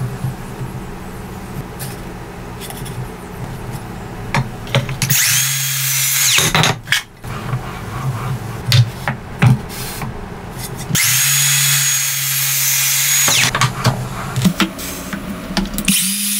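Cordless circular saw motor whining in three short runs, about one second, about two seconds, and a third starting near the end. Scattered clicks and knocks between the runs.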